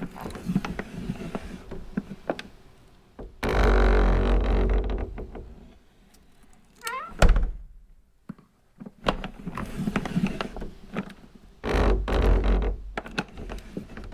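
A vibrating phone buzzing against a wooden surface in bursts of one to two seconds, rattling on the wood, with scattered knocks and smaller rattles between the bursts.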